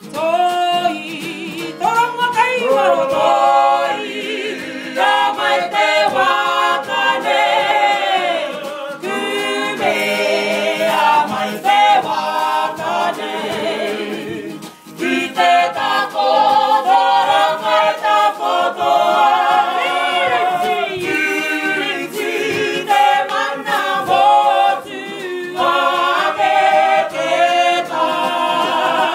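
A kapa haka group of Māori men and women singing a chant-like song in unison, unaccompanied, with sharp percussive hits marking the beat. The singing breaks off briefly about halfway through, then resumes.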